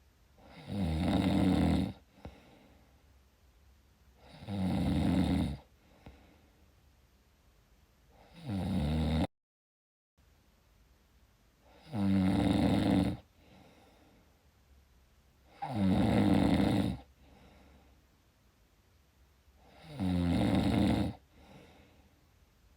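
Snoring, one drawn-out snore about every four seconds, six in all, with quiet breathing gaps between. The third snore is cut off abruptly by a brief dropout to dead silence.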